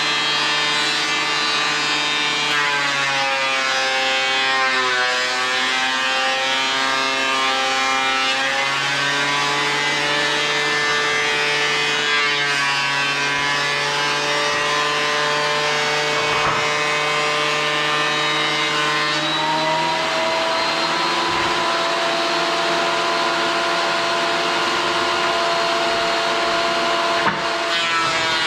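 Electric power-tool motor running continuously, its pitch dipping and recovering several times as it loads up while cutting wood.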